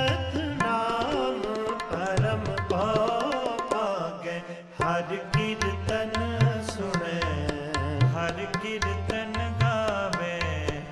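Instrumental interlude of Sikh kirtan: two harmoniums play the melody over tabla. The tabla drops out for a moment about four seconds in, then comes back with steady bass strokes.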